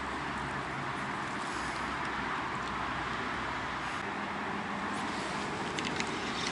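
Steady rushing outdoor background noise, with a few light clicks about six seconds in.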